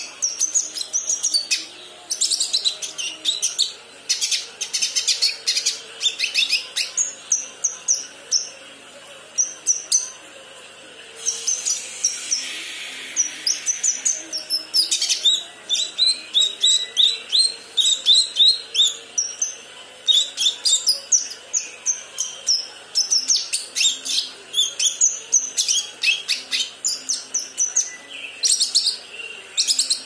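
Young kinoi leafbird practising its song: rapid runs of short, high chirps and twitters in bursts, with brief pauses between them. It is a juvenile still learning its song.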